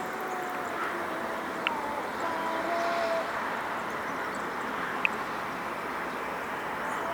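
Jet engines of a Boeing 737-300 airliner running, heard as a steady rush of noise, with two short ticks, one a couple of seconds in and another near the end.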